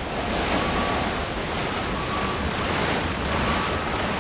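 Seawater rushing and gushing in through a ship's breached hull after an iceberg strike, a loud, continuous rush of water. A faint high-pitched tone sounds in short spells over it.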